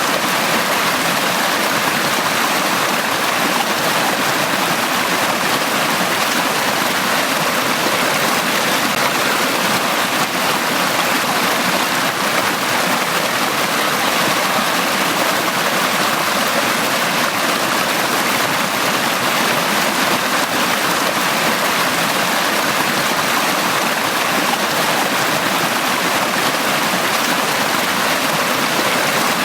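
Valley stream water flowing and splashing over rocks, a steady rushing sound without pauses.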